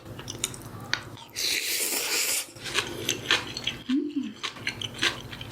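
Close-miked eating of jjolmyeon noodles: a slurp lasting about a second, with wet smacking and clicking of chewing around it, and a short hummed 'mm' near the end.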